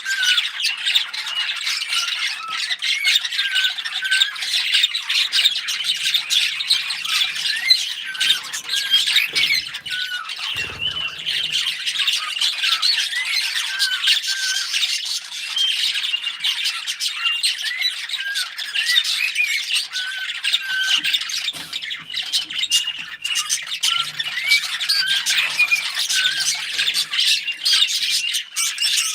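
Several small pet parrots chirping and chattering nonstop, many short, quick calls overlapping.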